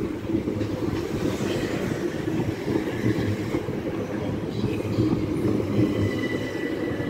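Class 375 Electrostar electric multiple unit moving through the station: a steady rumble of wheels on the rails, with a faint high whine in the last couple of seconds.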